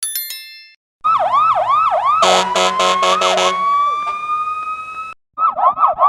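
Police truck siren sound effect: a short chime, then from about a second in a fast yelp rising and falling a few times a second. About two seconds in, a loud pulsing blare joins it for about a second, and the siren then winds slowly upward as a wail. It cuts off about five seconds in, and a new fast-yelping siren variation starts just before the end.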